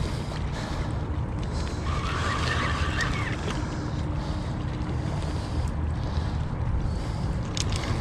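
Wind buffeting the microphone as a steady low rumble, over river water moving against a rocky bank, with a brief rush of higher noise about two seconds in.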